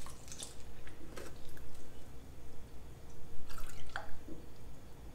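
Cold milk being poured from a metal measuring cup into a stainless steel mixing bowl of instant pudding mix, then from a plastic gallon jug into the measuring cup: intermittent liquid splashing.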